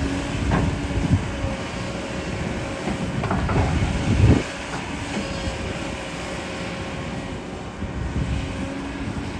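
Excavator's diesel engine running under load with a steady whine, and a run of heavy knocks and clanks, loudest about four seconds in.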